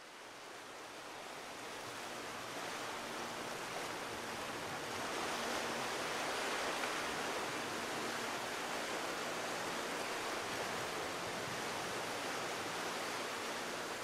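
Ocean surf: a steady wash of breaking waves that fades in over the first couple of seconds, with faint low tones underneath.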